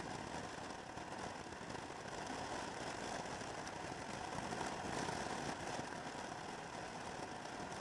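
Motor scooter cruising steadily on the road: engine drone mixed with wind and road noise on the camera, with no change in pace.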